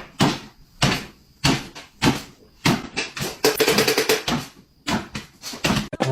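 A string of sharp knocks and bumps, about one every half second, with a quicker rattling run a little past halfway.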